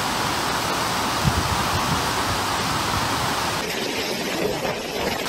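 Storm-surge surf rushing over a beach in typhoon wind, heard as a steady rush of water and wind noise with no pauses. The sound thins and loses its hiss for a moment about three and a half seconds in.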